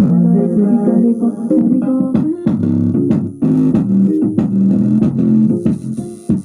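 Music with a plucked, bass-guitar-like melody playing through a bass speaker driven by a homemade TDA2050 amplifier, as a sound test. The sound is heavy in the low and low-mid notes, with little treble.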